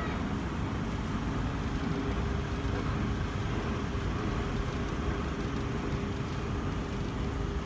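Steady low rumble of street traffic with a faint constant hum.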